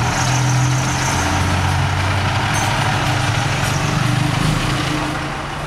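A motor vehicle engine running steadily, its low hum wavering slightly in pitch.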